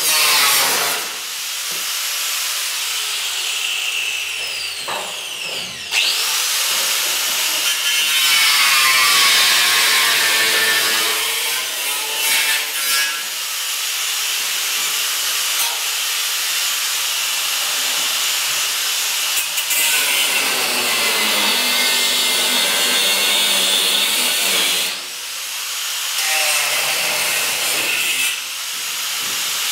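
Angle grinder cutting through old truck-body sheet steel. Its high whine sags and climbs again as the disc loads up in the cut, with a few short breaks between cuts.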